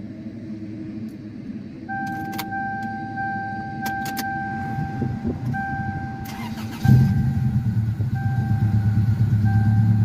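The 1993 Toyota Corolla's ignition being tried with a newly cut key: a few key clicks and a dashboard warning tone in long beeps, then a brief crank and the engine catches about seven seconds in and settles into a steady idle. The new key works and the car starts after about a week of sitting.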